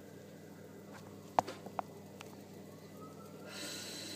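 Quiet kitchen sounds over a faint steady hum: three light taps about halfway through, then a soft hiss near the end.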